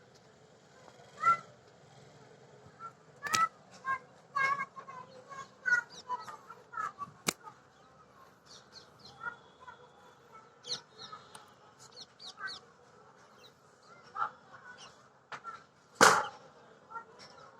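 A series of short animal calls, honk-like and irregular, with one louder call near the end.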